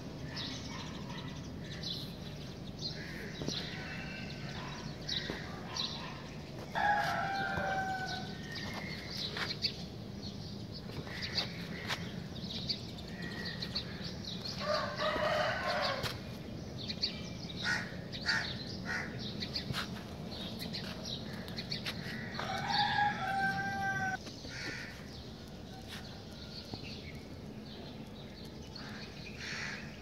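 A rooster crowing three times, several seconds apart, each crow lasting about a second and a half. Small birds chirp in short bursts between the crows over a steady low hum.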